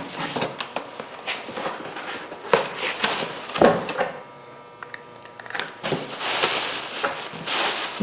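Cardboard box being opened by hand: tape slit and flaps pulled back with scrapes and knocks. From about two-thirds of the way in, the plastic wrapping inside rustles and crinkles as a hand rummages through it.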